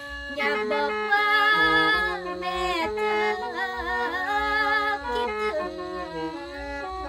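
A woman singing Isan lam in a bending, ornamented line over the steady sustained chords of a khaen, the bamboo free-reed mouth organ. The voice comes in just after the start and drops out about five seconds in, leaving the khaen playing on.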